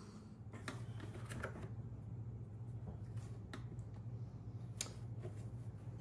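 Faint, scattered light clicks and taps of hands handling small plastic parts inside a portable fridge, over a steady low hum.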